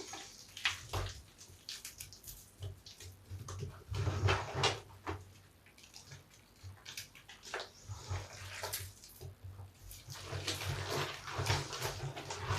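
Large bath sponge, soapy with scraps of soap, being lathered and squeezed by hand, making irregular wet squelches and foam crackles. The squeezing is loudest about four seconds in and again near the end, and eases off in between.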